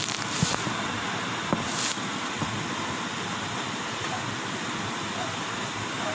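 Spatula stirring and scraping sauce in a stainless steel wok, with a few sharp clicks of the spatula against the pan over a steady hiss.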